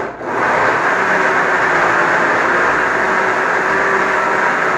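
Ordinary household jug blender running, its motor chopping cubes of green mango in water into juice. It dips for a moment right at the start as the pulse is let go and pressed again, then runs steadily.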